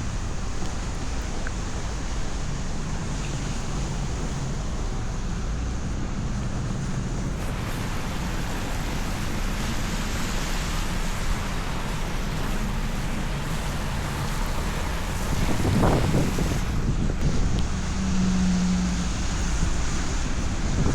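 City street traffic passing, a steady rumble of vehicles with wind noise on the microphone. The sound swells louder about fifteen seconds in, as if a vehicle passes close.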